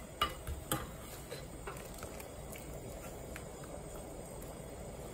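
Anchovy broth boiling in a glass pot, a steady bubbling hiss. In the first two seconds there are a few light taps as a mesh strainer lifting out the boiled anchovies knocks against the pot.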